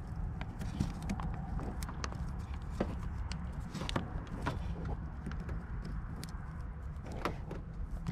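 Hands handling a car's wiring harness: scattered light clicks and rustles of wire looms and plastic connectors, over a low steady hum.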